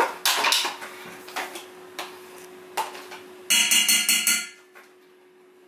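Quark being tipped and scraped from a plastic tub into a stainless steel mixing bowl: soft rustles and scattered knocks, then, about three and a half seconds in, about six quick taps on the steel bowl that make it ring. A faint steady hum lies underneath.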